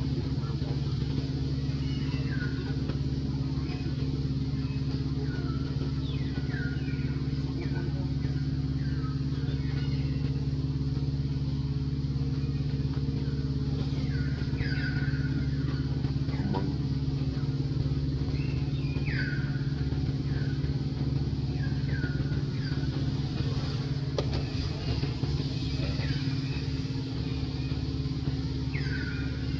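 A steady low engine drone, with short high chirps that fall in pitch repeating every second or two over it.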